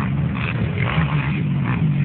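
Off-road racing engines running out on the track, their pitch rising and falling as they rev.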